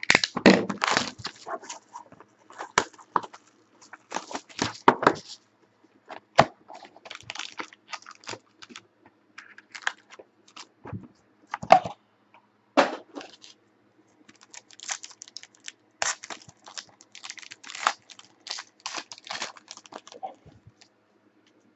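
A sealed box of trading cards being torn open and its packs unwrapped by hand: irregular tearing, crinkling wrapper and short clicks as card holders and cards are handled, in uneven spurts.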